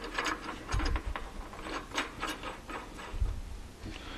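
Steel ER32 collet nut, a collet snapped into it, being threaded by hand onto an MT3 ER32 collet chuck body: scattered light metallic clicks and rubs, with a dull knock about a second in and another a little after three seconds.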